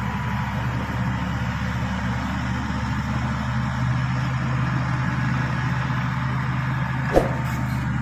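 Shantui SD16 crawler bulldozer's diesel engine running steadily under load as it pushes soil with its blade, with one sharp knock about seven seconds in.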